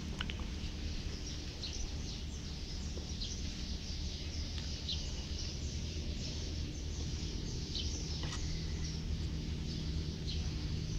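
Outdoor ambience: small birds chirping briefly now and then over a steady low rumble.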